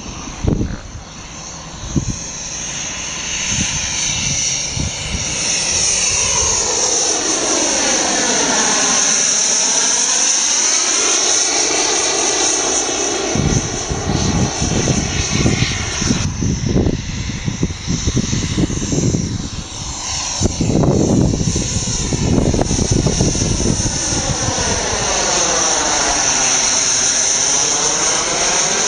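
Radio-controlled scale model A-10 jet flying, its engines giving a steady high whine. The sound sweeps down and back up as the model passes, about a third of the way in and again near the end.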